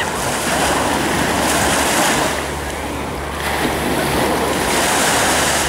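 Ocean surf breaking and washing up the beach in two surges, with a quieter lull about two to three seconds in.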